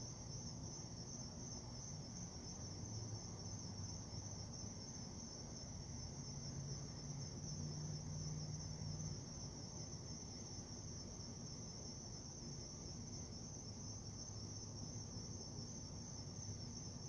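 Crickets chirping in a steady, unbroken chorus, a constant high trill, over a faint low hum.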